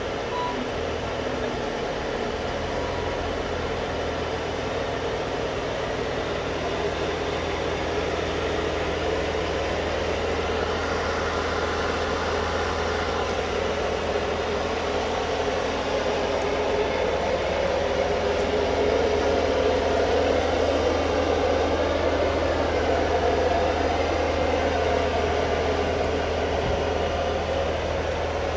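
Caterpillar D6T crawler dozer's diesel engine idling steadily, a constant low hum under mechanical engine noise that grows a little louder in the second half.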